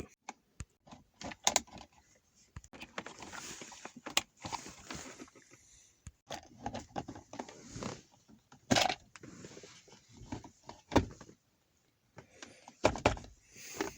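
Scattered small clicks, taps and rattles of plastic console trim and parts being handled while a new aux port is fitted in a Toyota Matrix, with a few sharper knocks in the second half.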